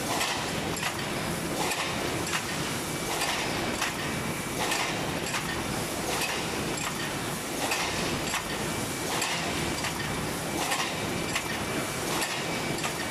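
Automatic tinplate sheet slitter running: a steady machine noise with a regular metallic swish, a little faster than once a second, as each printed sheet is fed through the rotary slitting knives and slides onto the delivery table.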